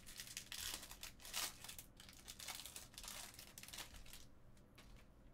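Trading-card pack wrapper crinkling and tearing as a pack is opened, with many short crackles that die down about four seconds in.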